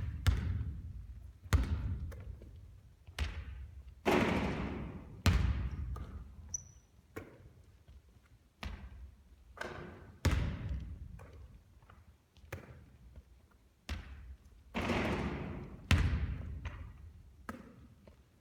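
Basketball thudding on a court, about one impact every one to two seconds, each dying away in the hall's echo.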